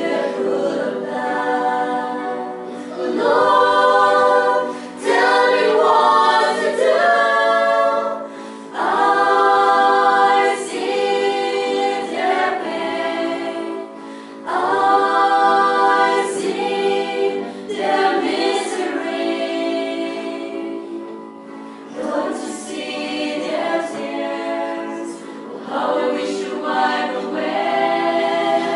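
A choir singing slowly in long phrases of held notes, with short breaks between the phrases.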